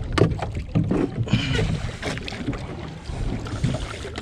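Irregular knocks and clatter of fishing gear being handled against a boat's fiberglass gunwale and deck as a gaff is brought to a hooked fish.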